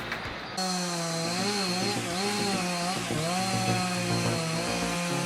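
Chainsaw running under load while cutting wood; its engine pitch dips and rises again several times as the chain bites. It starts about half a second in.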